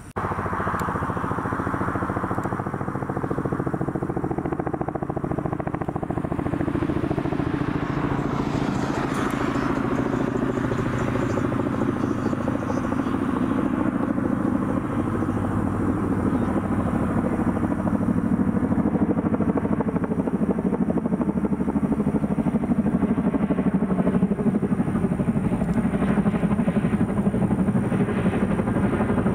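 US Army CH-47 Chinook tandem-rotor helicopter flying in on approach, its rotor blades beating rapidly over the engines, growing steadily louder as it nears.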